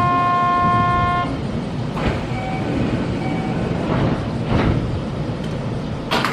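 A train horn holds a steady two-note chord, which ends about a second in. Two short beeps follow, then a sharp clack near the end, over the steady rumble of a train standing at the platform.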